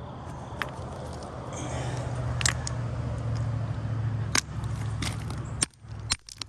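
Chert stones in a creek bed clacking together in sharp single knocks, roughly every two seconds, with two knocks close together near the end. Under them a steady low rumble cuts off suddenly near the end.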